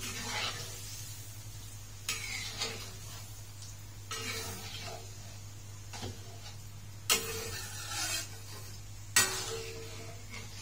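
Metal ladle stirring a thick coconut-milk curry in a metal wok, scraping and clinking against the pan every second or two, with the sharpest clinks about seven and nine seconds in. A low steady hum lies underneath.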